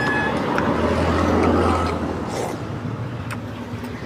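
Street traffic: a motor vehicle passes close by, swelling about a second in and fading away, with a brief high beep at the start and a few light clicks.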